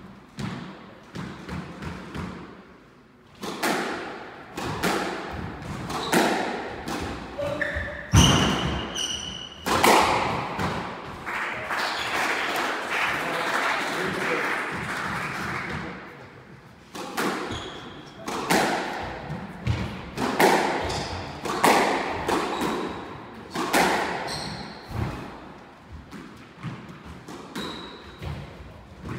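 Squash rallies: the ball is struck by rackets and hits the court walls in a series of sharp knocks, with short high squeaks from shoes on the wooden floor.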